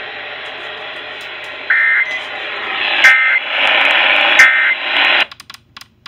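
Weather alert radio's speaker sounding the EAS end-of-message after a NWS flood warning: three short warbling digital data bursts (SAME end-of-message codes) over radio hiss, spaced about a second and a half apart. The audio cuts off suddenly a little after five seconds in, leaving a few faint clicks.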